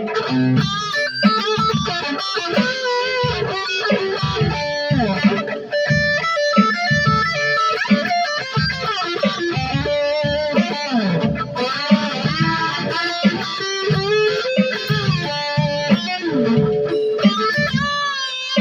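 Electric guitar with a Floyd Rose tremolo, its pickups switched out of phase, playing a busy lead line of single notes with frequent pitch bends and dips.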